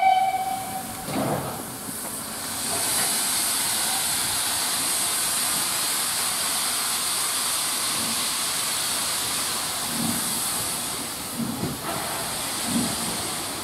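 A short whistle at the start, then a steam locomotive hissing steadily and loudly as steam blows from it, with slow exhaust chuffs in the last few seconds as it starts to pull away.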